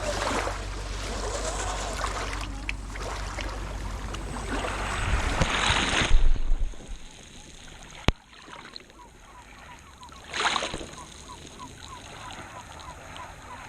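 1/10 scale RC crawler splashing through water, loud until it stops about six and a half seconds in, then a few quieter splashes.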